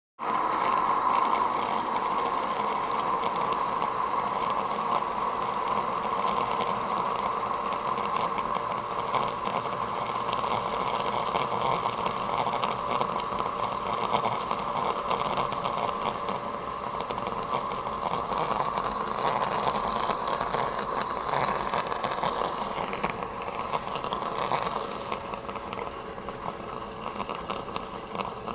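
Floating Airhead AHF-300 aeration pump running in water: a steady motor hum with churning, bubbling water as it froths the surface, easing off slightly near the end.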